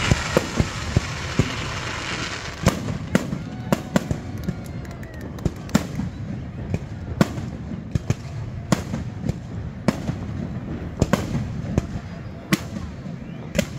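Fireworks display: aerial shells bursting in a string of sharp, irregularly spaced bangs, more than a dozen, with the hiss of rising rockets between them.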